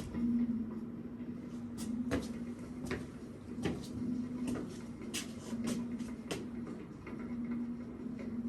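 A steady low hum that swells and fades every second or so as it resonates in a room, with irregular sharp clicks and knocks scattered over it.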